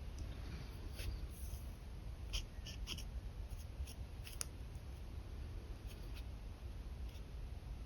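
Pen nib scratching across paper in a few short strokes, over a steady low rumble.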